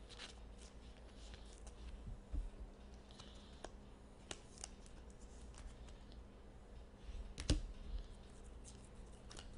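Hockey trading cards being handled and flipped through: faint scattered clicks and light scraping, with one louder knock about seven and a half seconds in.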